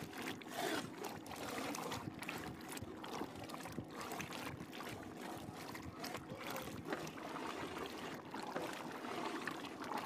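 Thick mutton karahi gravy bubbling as it simmers in the pot, a steady rough hiss studded with many small pops.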